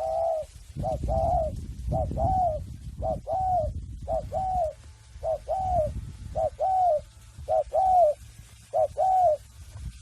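Spotted dove cooing: a short note followed by a longer arched coo, the pair repeated about nine times, roughly once a second.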